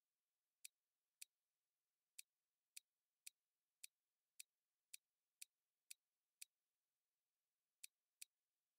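Faint, sharp computer mouse clicks, about a dozen, mostly around half a second apart, with a pause in the second half and two quick clicks near the end.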